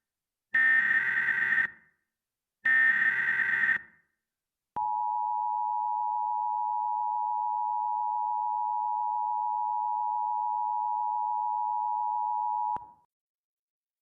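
Emergency Alert System header: two short bursts of rapid, buzzy digital data tones, each about a second long. A little later comes the steady two-tone attention signal, which holds for about eight seconds and then cuts off. This is the tone sequence that announces an alert message.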